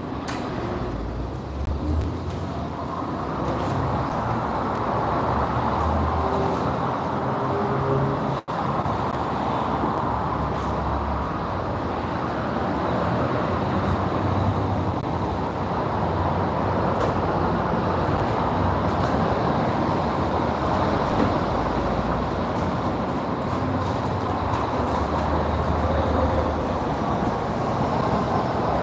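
Pressure washer in a car-wash bay: a steady hiss of spraying water over a low pump rumble, dropping out sharply for an instant about eight seconds in.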